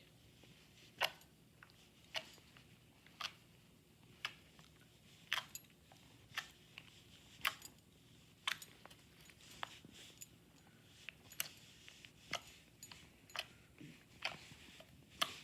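Slime being squeezed and played with by hand, giving crisp pops and clicks about once a second.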